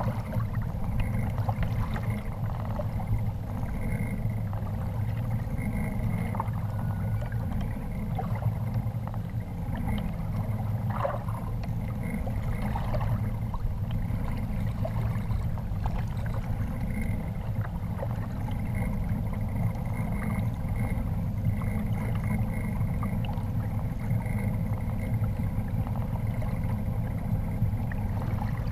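Choppy lake water lapping and slapping against the plastic hull of a Feelfree Lure 11.5 fishing kayak, with wind rumbling on the microphone as a steady low noise.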